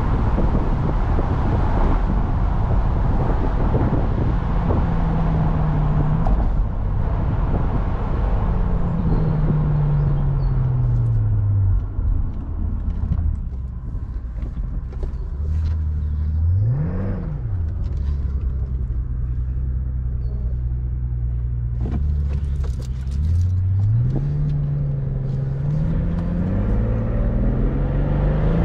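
Mercedes-Benz SL65 AMG's twin-turbo 6.0-litre V12 on the move with road noise. The revs fall away as the car slows and settle low and steady. Past the middle comes one quick rev up and back down, then the engine pulls up again near the end.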